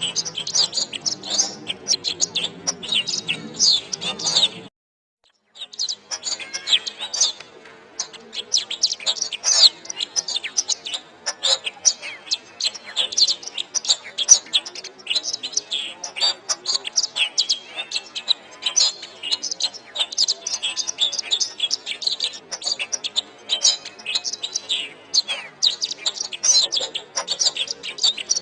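Domestic canary singing a fast, continuous song of high chirps and trills. The song breaks off for a brief silence about five seconds in, then carries on. A low hum lies under the song before the break.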